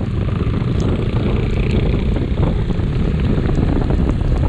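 Motorcycle on the move: the steady low rumble of a Bajaj Dominar 400's single-cylinder engine under wind buffeting the action camera's microphone.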